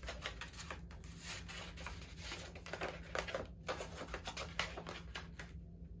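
Paper and cardboard packaging being handled: a run of irregular light rustles, taps and scratches.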